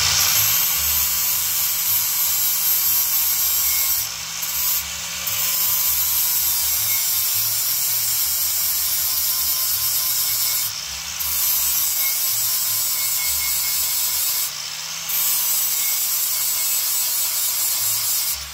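Handheld power grinder grinding metal steadily, shaving back the bumper fitment so the part sits farther down. It eases off the work briefly three times.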